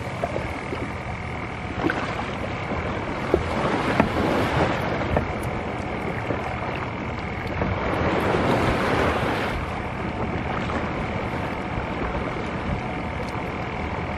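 Kayak paddle strokes swishing and splashing in the sea, with wind noise on the microphone and lapping water throughout.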